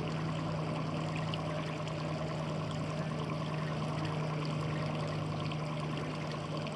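Small outboard kicker motor on a fishing boat running steadily at trolling speed, a constant low hum, with water noise along the hull.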